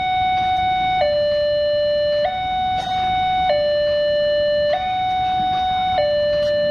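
Railway level-crossing gate alarm sounding a two-tone electronic siren, switching back and forth between a higher and a lower steady tone about every one and a quarter seconds.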